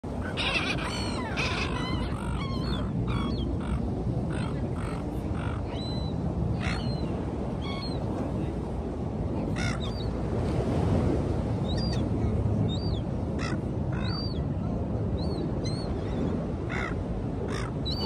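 Seagulls calling in short squawks, a quick flurry of them in the first few seconds and then scattered calls, over a steady low rush of wind and surf.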